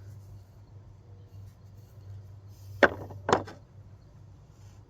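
Two sharp clacks about half a second apart, a screwdriver being handled against a hard surface as it is set down or picked up, over a steady low hum.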